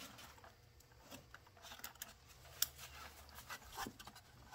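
Faint scattered clicks and handling noise of a fuel line disconnect tool being worked under a fuel-rail quick-connect, with one sharper click about two and a half seconds in, over a low steady hum.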